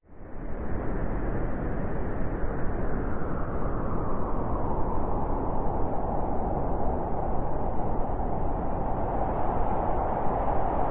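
Steady, muffled white-noise rushing sleep sound, weighted toward the low end with little hiss at the top. It fades in quickly from silence at the very start.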